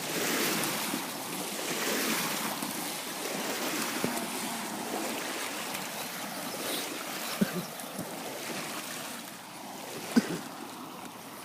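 Waves washing in, the rushing noise swelling and easing every couple of seconds, with wind on the microphone. A few sharp clicks or knocks come in the second half.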